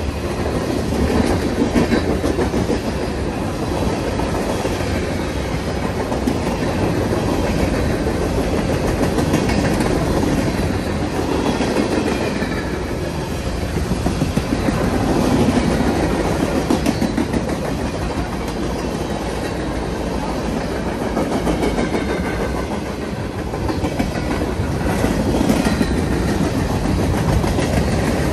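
Freight cars rolling past at close range: a steady rumble of steel wheels on rail with fast rhythmic clicking, rising and falling in loudness as the cars go by.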